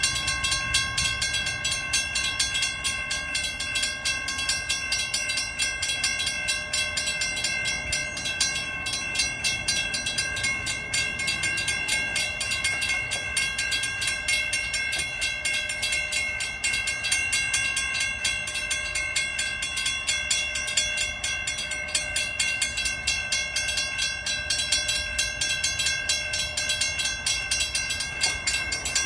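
Railroad crossing bell ringing continuously with rapid, even strokes while the crossing signals are activated.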